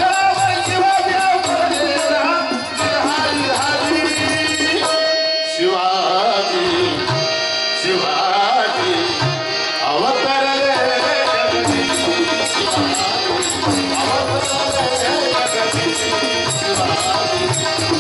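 A Marathi devotional bhajan performed live: voices singing over a harmonium, with tabla beating out the rhythm and small hand cymbals ticking in time.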